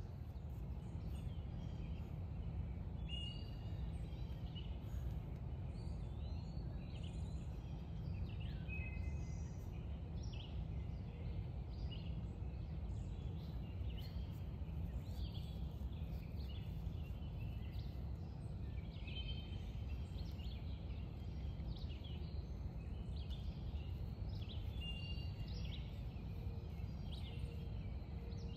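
Songbirds chirping and calling in short repeated notes over a steady low outdoor rumble.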